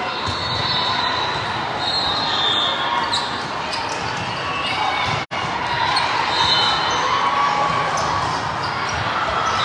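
Echoing gym ambience at a volleyball match: steady crowd chatter and voices, with occasional ball thuds. The audio cuts out for an instant about five seconds in.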